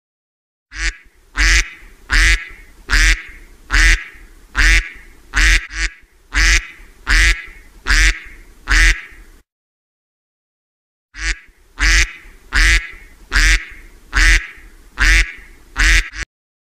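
Mallard ducks quacking: a regular series of loud quacks, about one every three-quarters of a second, broken by a pause of under two seconds in the middle.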